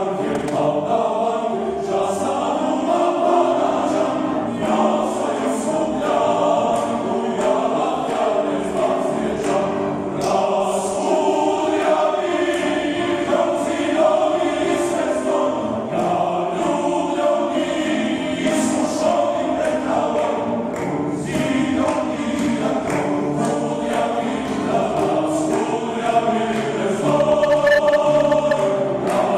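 Male choir singing, growing louder near the end.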